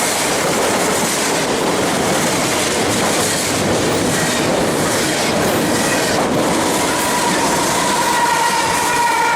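BNSF double-stack freight train rolling past at speed, a steady loud rumble and clatter of steel wheels on the rails. Over the last couple of seconds a high, steady wheel squeal rises in over the clatter.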